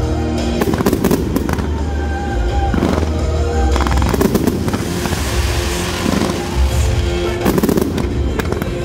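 Fireworks display going off: a quick run of sharp bangs and booms, with a thick spell of high hiss and crackle about halfway through. Music plays along underneath the explosions.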